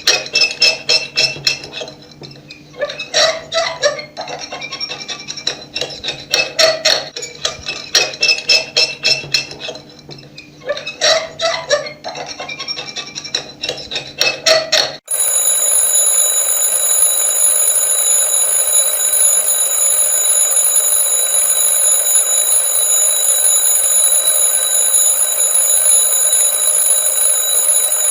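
Alarm clock ringing: a fast, rattling bell ring in bursts with short pauses. About halfway through it cuts abruptly to a loud, steady, shrill alarm tone that holds without change.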